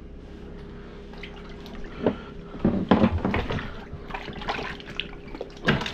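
Water splashing and dripping in an ice-fishing hole as a hooked walleye is brought up through the ice, in irregular bursts over a steady hum.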